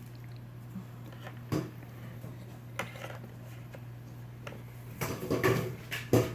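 Hard plastic toy pieces clicking and knocking as they are handled and fitted together: a couple of single clicks, then a rattling cluster with a sharp snap near the end. A low steady hum runs underneath.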